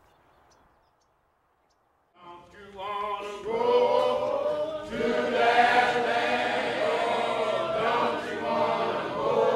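A choir singing, fading in about two seconds in after near silence and reaching full volume by about four seconds.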